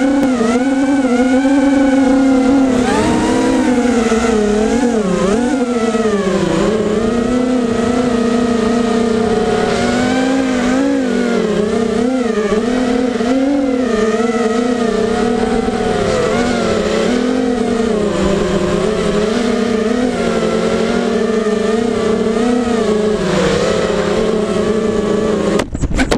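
QAV210 FPV racing quadcopter's four Cobra 2300 brushless motors and propellers whining in flight, the pitch rising and falling as the throttle changes. The sound breaks off abruptly near the end.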